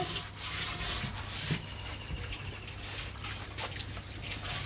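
Tap water running and splashing over an earthenware water pot as it is scoured by hand, with light rubbing and a few small knocks.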